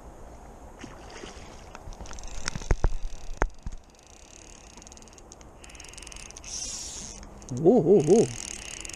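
Fly reel's click-and-pawl ratchet buzzing in short spells as the line is wound and pulled, with a few sharp clicks of handling. Near the end comes a brief wavering hum from a man's voice, the loudest sound.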